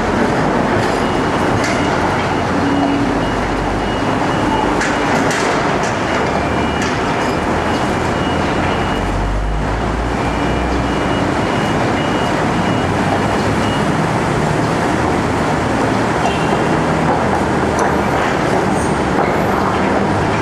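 Heavy construction machinery running steadily: a loud, dense rumble with a few brief knocks through it and a deeper low swell about halfway through.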